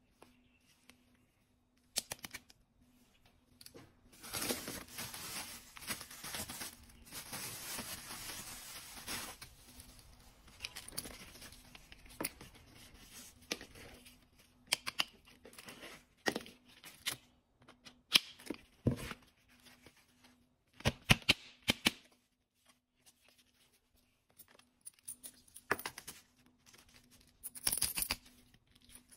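Plastic packaging rustling and tearing for several seconds as items are unwrapped, followed by a series of sharp clicks and knocks as plastic toy gear, including a tactical belt's plastic buckle, is handled.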